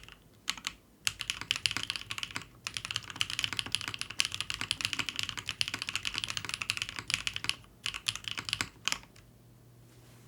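Continuous typing on a Bauer Lite custom mechanical keyboard with BSUN Holy Panda tactile switches, a polycarbonate plate and GMK keycaps: a rapid clatter of keystrokes with a few short pauses, stopping about a second before the end.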